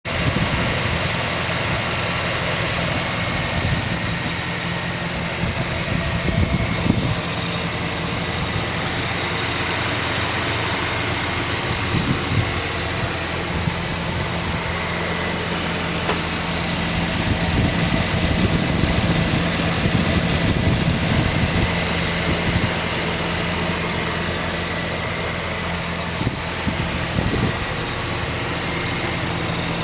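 2007 Chevrolet Silverado 1500's 4.8-litre V8 idling steadily.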